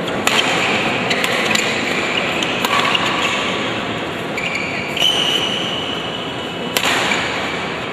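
Badminton rally: sharp cracks of racket strings hitting the shuttlecock every second or two, with brief high squeaks of shoes on the court floor, over a steady background noise of the hall.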